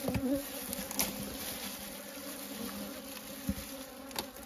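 Honeybees buzzing in a steady hum around an opened wooden box hive as its comb is cut out, with a few light knocks from the comb and frame being handled.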